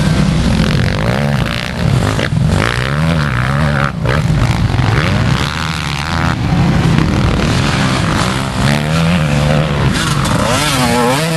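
Motocross dirt bike engines revving hard and backing off, pitch rising and falling over and over with the throttle.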